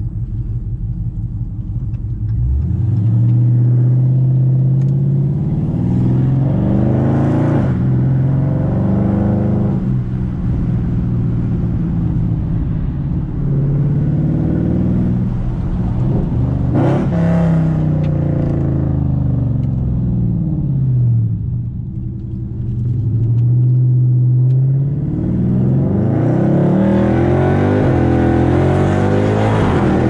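Straight-piped, header-equipped Dodge Charger V8 on an E85 flex-fuel tune, accelerating hard. The revs climb and drop back through several upshifts, with a sharp crack at two of the shifts. Around twenty seconds in the revs fall off, then climb again near the end.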